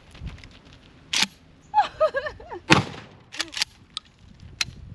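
Two shotgun shots from a Remington 870 pump-action, about a second and a half apart, the second the louder, followed by a few lighter clicks.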